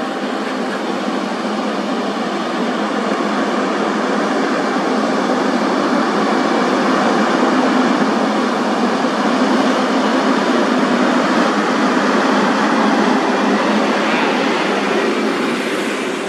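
Scania tractor unit hauling an excavator on a lowboy trailer, its engine and tyres getting louder as it approaches and passes close by, then easing off near the end.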